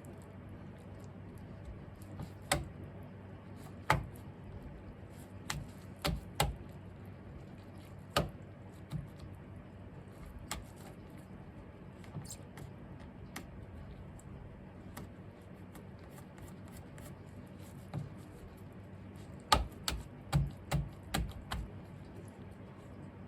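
Scattered light clicks and taps from hands handling small tools and objects, with a quick cluster of several about twenty seconds in, over a low steady hum.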